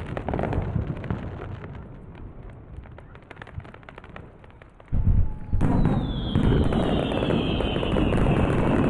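Fireworks going off: a rumble of bursts that dies down, then a sudden loud burst about five seconds in, followed by more booming and a long whistle falling in pitch.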